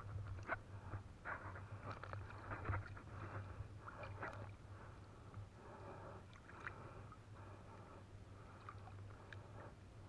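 Small splashes and water sloshing as hands work in shallow river water, picking fish out of a trammel net, with irregular little clicks and a faint steady low hum underneath.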